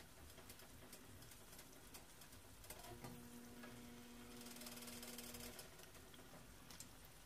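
Near silence: faint ticks and rustles of an egg roll wrapper being folded and rolled by hand on a plate, with a faint steady hum about three seconds in that lasts a couple of seconds.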